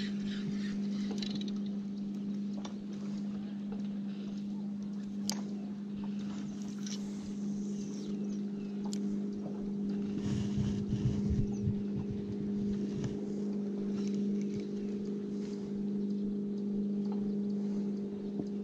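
Electric trolling motor humming steadily at the bow, one even low drone, with a few light clicks over it.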